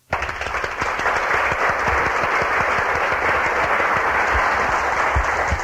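A large audience applauding steadily, the clapping cutting in suddenly at the start.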